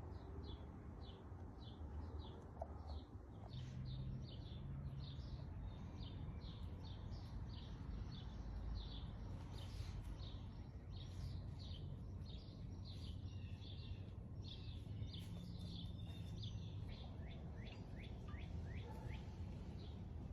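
Songbirds chirping faintly: a steady run of short, high chirps, about two a second, over a low background rumble.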